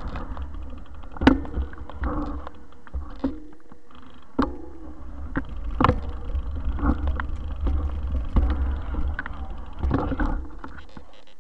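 Mountain bike rolling fast over a dirt forest trail, heard from a camera riding on the bike: a steady low rumble of wind and vibration, broken by sharp knocks and rattles as the bike jolts over bumps. The rumble drops away near the end.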